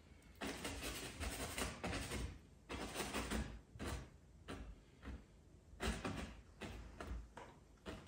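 Bristle brush scrubbing stiff, unthinned oil paint onto a canvas in a series of short strokes, each a dry scratchy rasp.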